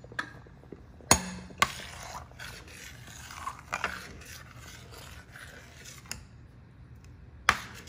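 Metal ladle stirring a thick curry in a metal pot, scraping through it and knocking against the pot sharply about a second in and again near the end.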